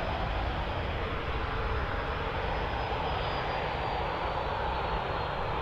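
Boeing 737 jet engines running, a steady rush with a faint high whine that slowly falls in pitch.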